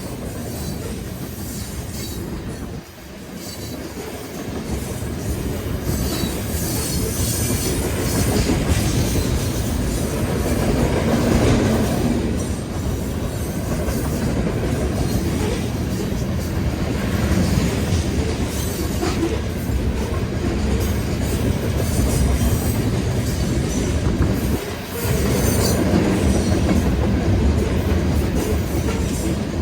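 BNSF freight train of sand hopper cars passing at speed: a continuous rumble and clatter of steel wheels on the rails, with some wheel squeal, building after the first few seconds and briefly dipping twice. Strong wind is blowing on the microphone.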